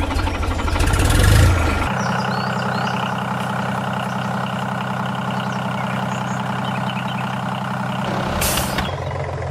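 A small motor running: rough and loud for about the first two seconds, then settling into a steady, even hum. There is a short hiss near the end.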